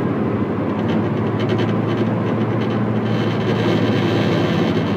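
Steady cabin noise of a Subaru Impreza hatchback at highway speed, with a low, even hum and a buzzing from the rear: a drivetrain vibration that the mechanic suspects is a U-joint on the rear propeller shaft.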